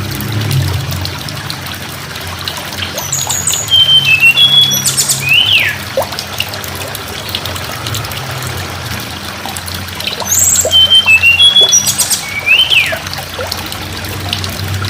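Tledekan gunung singing two matching short phrases, about six seconds apart, each a run of high whistled notes, sharp clicks and a quick downslurred note. A steady trickle of running water goes on underneath.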